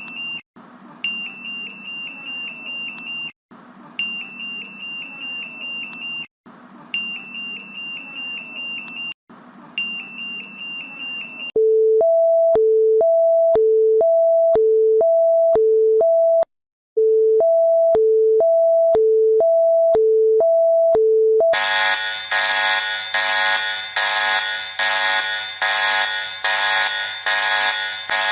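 Synthesised emergency-alert alarm tones, three in turn. First a high steady tone in beeps about two seconds long. About 11 seconds in comes a louder two-tone alarm switching quickly back and forth between a low and a higher note, with a brief break midway, and about 21 seconds in a harsh buzzing alarm of many notes pulsing about twice a second.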